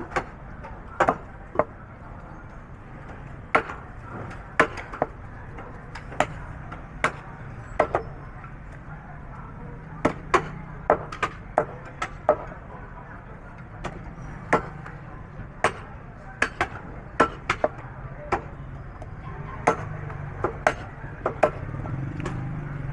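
Heavy butcher's cleaver chopping buffalo trotters on a round wooden chopping block, splitting the bone. There are about two dozen sharp, irregular chops, often in quick pairs, with short pauses between them.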